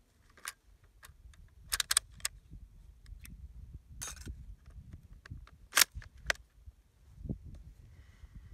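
Metallic clicks and clacks of a Mauser bolt-action rifle being loaded, as 8mm cartridges are pressed from a stripper clip into the magazine and the action is worked. The clicks come in a cluster about two seconds in, and the sharpest clack comes near six seconds.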